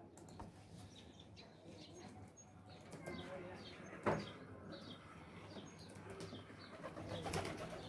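Quiet clicking of keys on a laptop keyboard as a password is typed in, with one sharper click about four seconds in.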